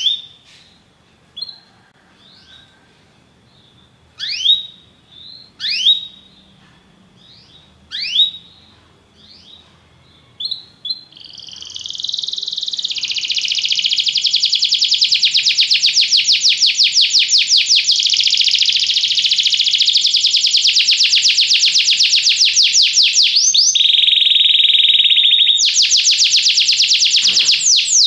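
Belgian canary singing. It starts with separate rising chirps a second or two apart, then from about twelve seconds in breaks into a long, loud, very fast continuous trill. Near the end one held steady note interrupts the trill, and then the fast trill resumes.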